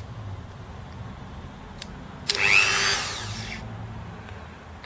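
Handheld Dremel rotary tool with a grinding stone, blipped on once about two seconds in: it spins up with a rising whine, runs for about a second and winds down. It is a quick test run to check which way the stone turns before grinding.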